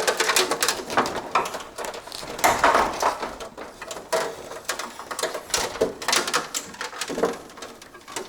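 Irregular clicks, knocks and rattles of hard objects being handled, coming in quick uneven strings.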